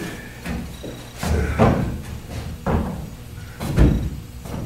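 Several irregular thumps and knocks: the footsteps of performers moving about on a stage floor.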